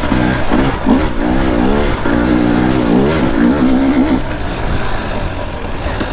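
Two-stroke dirt bike engine revving up and down quickly and repeatedly under the throttle, then settling to lower, quieter revs about four seconds in.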